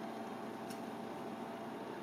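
Steady kitchen hiss and low hum around a frying pan of crab claws, with one faint click about two-thirds of a second in.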